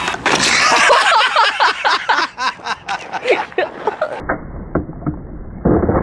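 People laughing and exclaiming in quick bursts, then near the end a skateboard deck slapping down and clattering on asphalt after an ollie attempt.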